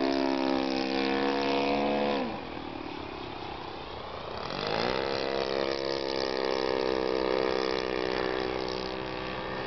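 ASP FS-80AR four-stroke glow engine of a Great Planes Slow Poke RC model plane running in flight. A bit over two seconds in its note drops sharply and goes quieter; about two seconds later the pitch climbs back up and it runs steadily again.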